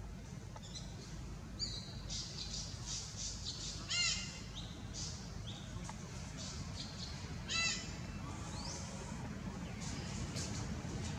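Animal calls: many short, high chirps, with two louder, harsh calls that fall in pitch about four and seven and a half seconds in, over a steady low hum.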